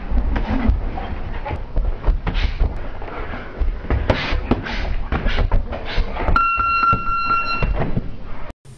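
Boxing sparring: irregular knocks and thuds of gloved punches landing and feet moving on the ring canvas. A steady high beep sounds for about a second near the end.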